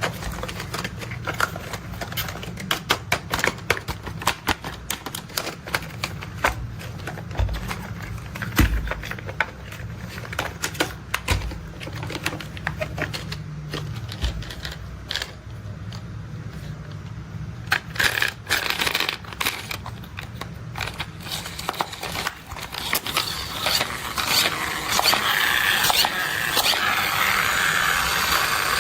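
Plastic toy construction vehicles being tapped and handled: rapid, irregular clicks and taps. About two-thirds of the way in this gives way to a louder, continuous scraping rattle of toy wheels rolling.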